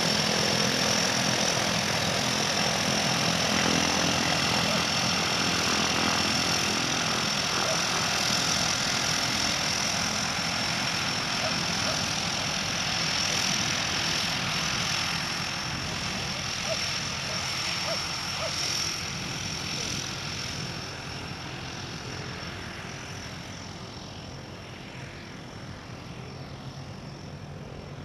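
Engine of a turbine-converted de Havilland DHC-3 Otter floatplane running at taxi power on the water, a steady high whine over the engine noise, fading gradually as the plane moves away.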